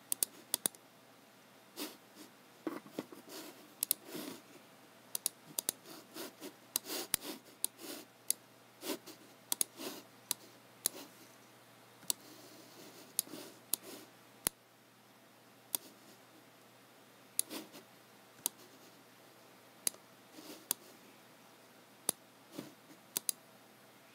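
Irregular clicks and taps of computer work at a desk, from a mouse and keyboard: sharp single clicks, sometimes two or three in quick succession, with softer taps between.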